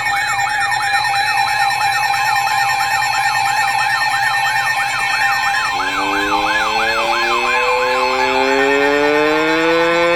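Siren sound: a fast rising-and-falling wail, about three sweeps a second, over a steady tone. About six seconds in it changes to a single tone that rises slowly, like a siren winding up.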